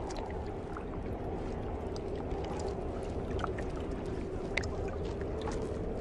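Steady low background noise with a faint sustained hum and a few soft ticks, one a little clearer about four and a half seconds in.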